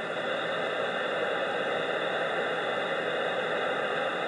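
Steady hiss of static from a two-way radio's speaker, with no voice coming through between calls.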